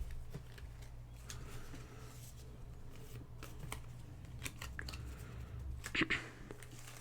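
Pokémon trading cards being handled and set down on a pile: scattered light clicks and soft sliding rustles, with a brief louder rustle about six seconds in.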